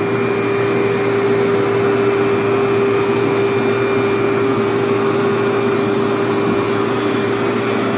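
Workhorse vacuum cleaner running steadily, a constant whine over the rush of air as it pulls dirt out of the carpet.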